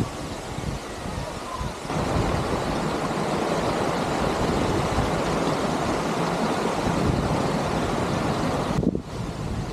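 Steady rushing of a large waterfall, louder from about two seconds in and cutting off abruptly near the end.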